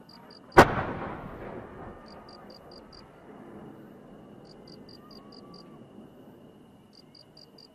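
A single loud firework shell burst about half a second in, with a rumbling echo that fades over a couple of seconds. Faint short high beeps in quick groups and a faint steady high tone run underneath.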